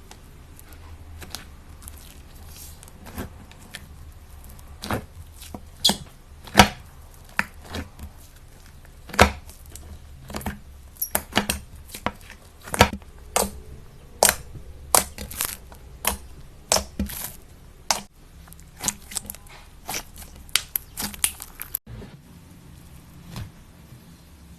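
Slime being pressed and worked by hand, giving irregular sharp clicks and pops, several a second at their busiest in the middle, over a faint low hum.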